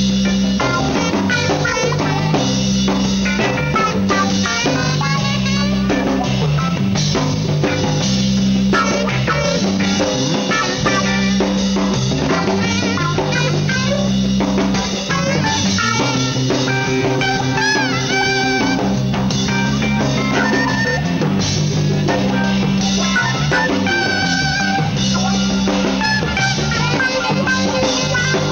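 Live jazz-rock band playing: a saxophone carries a wavering melodic line over a bass guitar and a drum kit.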